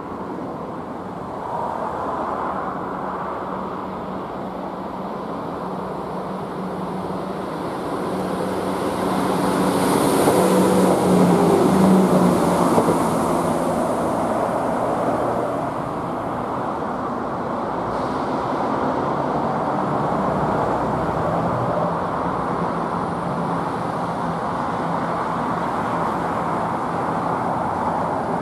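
ScotRail Class 170 Turbostar diesel multiple unit running on the line, its underfloor diesel engines giving a steady low hum. It grows to its loudest about ten to thirteen seconds in as the unit passes close, then settles to a steady rumble.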